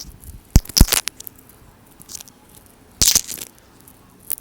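A hand-squeezed fidget toy held close to an earphone microphone, giving a few sharp cracks and crunches: a pair just under a second in, a louder crackling cluster about three seconds in, and a single crack near the end.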